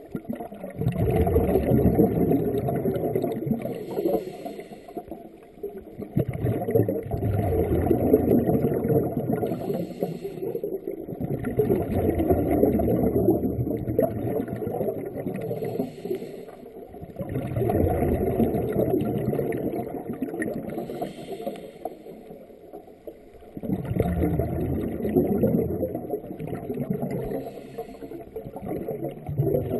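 Scuba diver breathing through a regulator underwater: a short hiss with each inhale and a long low bubbling with each exhale, repeating about every six seconds.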